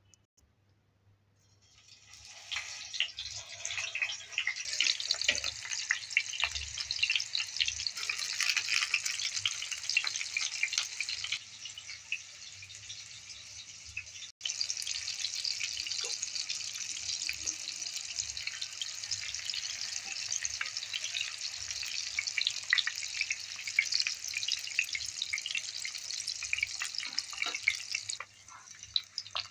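Peeled eggplant halves frying in hot oil in a pan: a steady crackling sizzle that starts about two seconds in.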